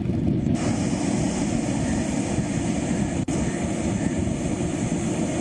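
Storm wind blowing hard across the microphone at a rain-swept shore, a steady heavy rushing noise, with a brief cut about three seconds in.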